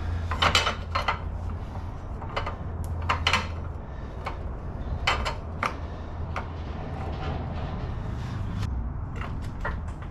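Scattered clinks and knocks of hand tools and car parts being handled, in short clusters, over a steady low hum.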